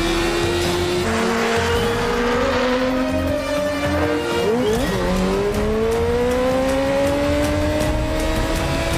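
Sport motorcycle engine revving hard as it accelerates: its pitch climbs steadily and drops at upshifts about a second in and again around four to five seconds in. Music runs underneath.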